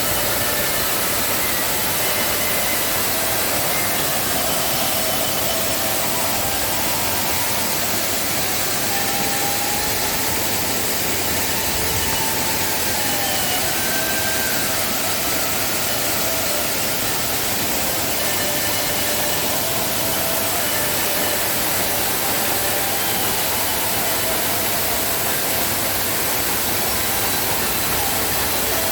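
Waterfall in rainy-season high flow: a steady, loud rush of falling water.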